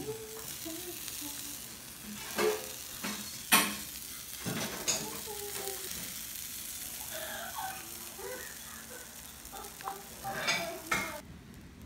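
Shredded cheese and batter sizzling on the hot plates of a mini waffle maker, a steady hiss that cuts off just before the end. Two sharp knocks of a utensil against the dishes come about 2.5 and 3.5 seconds in.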